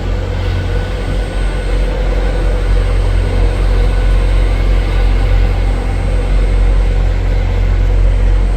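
Train running at a station platform: a steady low rumble with a faint, even hum above it.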